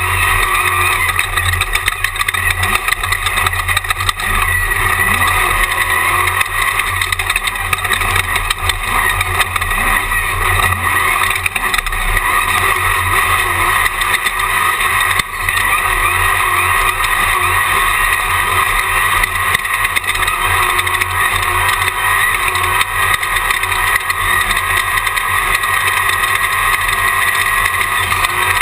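Jimco Class 1 desert race buggy driven at racing speed, its engine and driving noise loud and steady, heard through an onboard camera inside the car.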